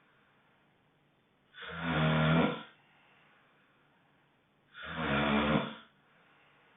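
Honking snoring: two loud, rasping snores about a second long each, one about a second and a half in and another about three seconds later, with quiet breathing between them.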